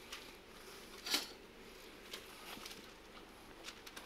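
Baking paper being handled and cut with scissors: faint rustling, with one sharper crackle about a second in.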